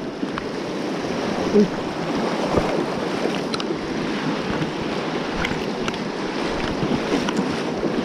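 Fast-flowing mountain stream rushing over rocks in a steady wash, with a few faint clicks.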